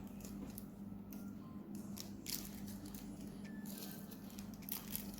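Faint wet squishing and scraping as a slime base of glue mixed with colour and glitter sprinkles is stirred in a small container, in short irregular strokes over a steady low hum.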